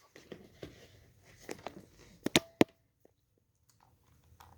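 Scattered small clicks and knocks of a tablet and its cable being handled, with two sharp clicks about two and a half seconds in, then a short lull.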